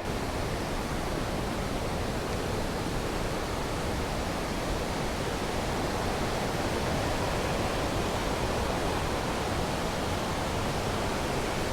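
Steady rushing of a waterfall and river cascades, an even, unbroken noise with no change in level.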